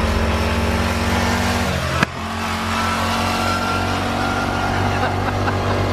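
Murray ride-on lawnmower engine running steadily while the mower is driven. About two seconds in there is a sharp click, after which the engine note is lower and carries on steady.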